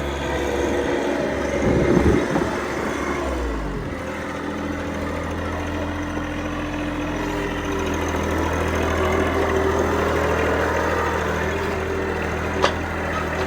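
A vehicle engine running steadily. Its note changes about four seconds in, and there is a single sharp knock near the end.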